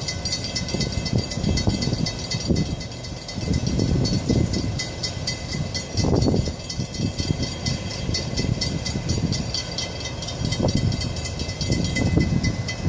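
Railroad grade-crossing warning bell ringing steadily with rapid, evenly spaced strikes, signalling an approaching train. An uneven low rumble runs underneath.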